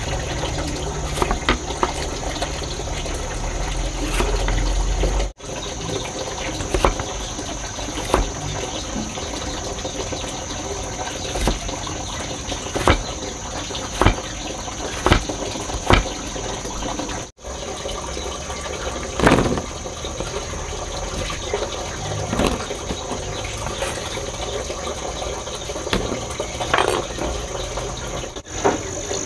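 A cleaver chopping peeled potato into sticks on a wooden chopping board, making irregular sharp knocks about every second or two. Behind it runs a steady rushing noise.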